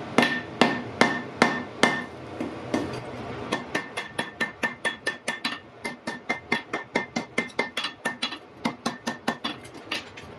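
Blacksmith's hammer striking iron on an anvil. There are about five heavy blows in the first two seconds, then a quicker run of lighter blows, four or five a second, many with a short ringing note.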